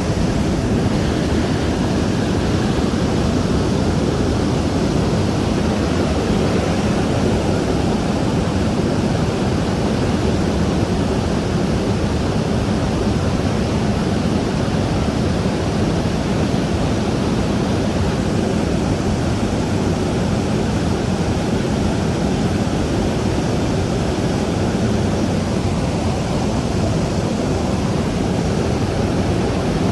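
Steady rush of wind and engine noise inside a transport aircraft's cargo hold, flying with its rear ramp open.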